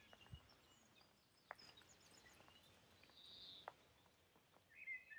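Near silence: faint outdoor air with a few soft bird chirps, the longest about three and a half seconds in, and a couple of faint clicks.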